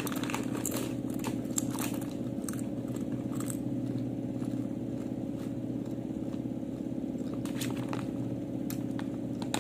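Doritos tortilla chips crunching as they are bitten and chewed close to the microphone: irregular sharp crunches, thicker in the first few seconds and again near the end, over a steady low hum.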